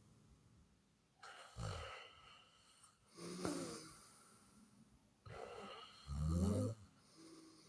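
A person snoring in sleep: a few separate snoring breaths a second or two apart, the loudest and deepest one about six seconds in.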